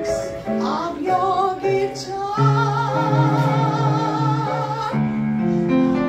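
A woman singing a long held note with a wavering vibrato, over piano chords that change about halfway through.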